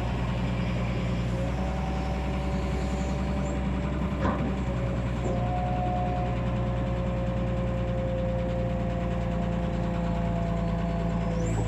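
Excavator diesel engine running steadily under work, with a whining tone that shifts pitch a few times and a single knock about four seconds in.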